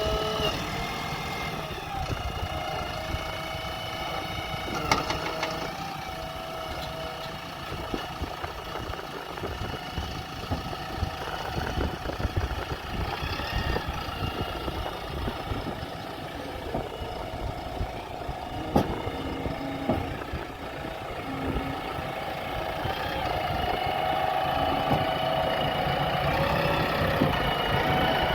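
Diesel engine of a JCB 3DX backhoe loader running while it loads mud, its pitch shifting as the load changes. There are a couple of sharp knocks, and it grows louder near the end.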